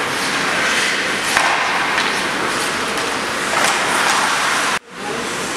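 Ice hockey play: skate blades scraping on the ice over a steady noisy rink hiss, with a few short, sharper scrapes. The sound cuts out for an instant near the end.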